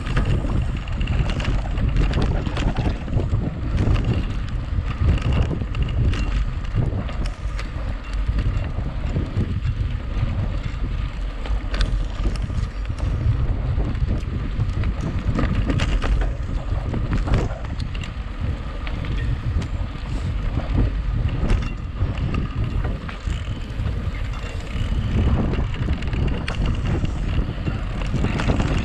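A mountain bike ridden fast over gravel and rough track: steady wind rumble on the microphone, with frequent rattles and knocks from the bike.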